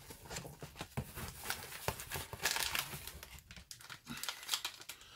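Foil mystery bag of a Funko Pint Size Heroes figure crinkling as it is handled, with many small irregular crackles.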